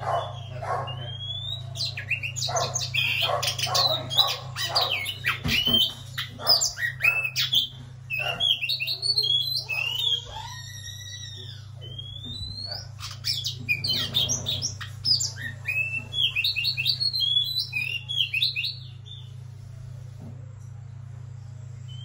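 Oriental magpie-robin singing: a long, varied run of clear whistled notes and quick rising and falling phrases with short pauses between them, stopping about 19 seconds in.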